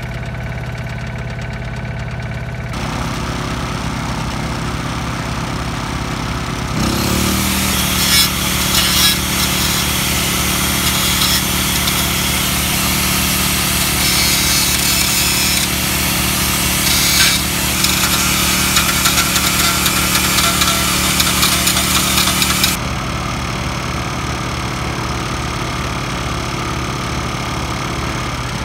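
Angle grinder spinning up about seven seconds in and grinding paint and rust off the kei truck's steel frame to bare metal, ready for welding. It grinds for about fifteen seconds, then stops abruptly. An engine idles steadily underneath throughout.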